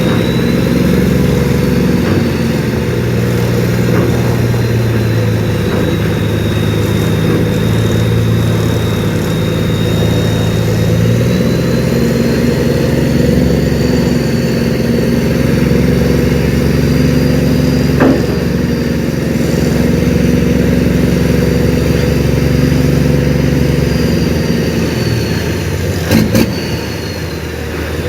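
Heavy dump truck's diesel engine running steadily under load, with a thin high whine above it that drifts slightly in pitch. A sharp knock about two-thirds of the way through and a couple more near the end.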